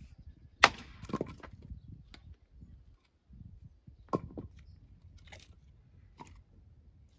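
Sharp cracks and knocks of wood, about seven scattered strikes; the loudest comes about half a second in.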